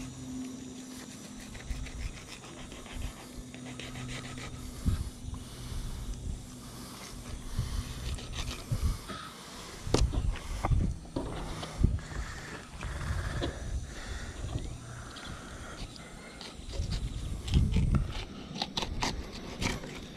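Fillet knife scraping and slicing along a flounder's bones on a wooden cutting board, with irregular bumps and handling noise. A steady low hum stops about four seconds in.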